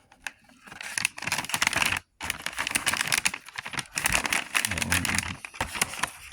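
Plastic snack pouch crinkling and rustling as it is handled, a dense crackle with a brief break about two seconds in.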